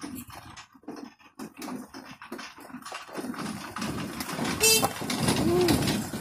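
Small Mitsubishi pickup climbing a rough stony track: its engine labours and its tyres crunch and knock over loose rocks, growing louder as it draws close. Near the end a short squeal is heard, followed by a brief rising-and-falling call.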